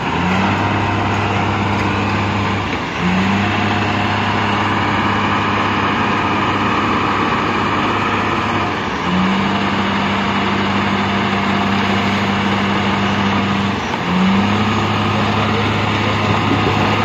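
Tipper truck's diesel engine running at raised revs while its hydraulic hoist tips the loaded body. The engine note holds steady and shifts up briefly about three times.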